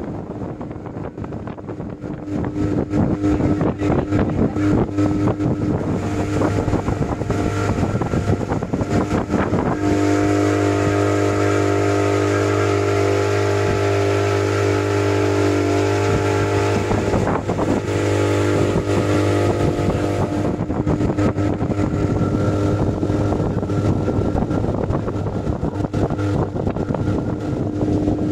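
Motorboat engine running steadily under a rushing noise of wind and water. It grows louder about three seconds in.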